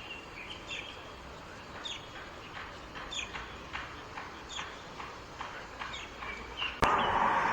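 Small birds chirping: many short, separate chirps over a faint background hum. Near the end the sound cuts abruptly to a louder, steady rush of noise.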